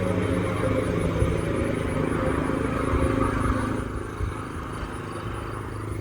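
Federal Signal 2001-SRN outdoor warning siren winding down at the end of its one-minute alert test. Its steady tone fades noticeably about four seconds in.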